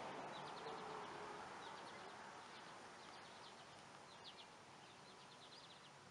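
Faint outdoor background of short, high chirps coming in quick runs, over a low steady hiss.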